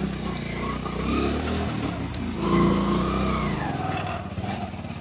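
Honda motorcycle engine running, rising in pitch and level about two and a half seconds in, then falling back to a steady, even idle near the end.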